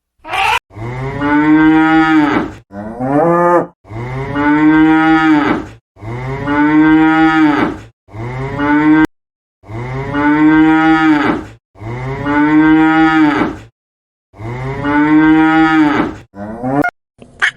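A cow mooing again and again: about eight long, loud calls of one to two seconds each, with short pauses between them.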